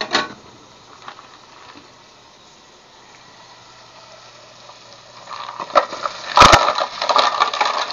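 Fresh mussels in their shells tipped from a plastic colander into a metal cooking pot, the shells clattering against each other and the pot. A single knock comes at the start; the clatter begins about five seconds in and is loudest a second or so later.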